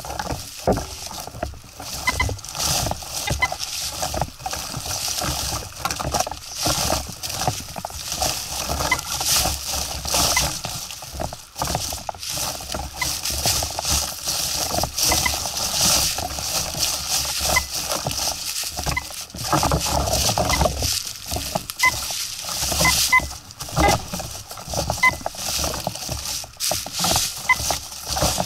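Footsteps crunching through dry fallen leaves while a metal detector's search coil is swept over the leaf litter, rustling it. Short, faint beeps from the detector come through now and then.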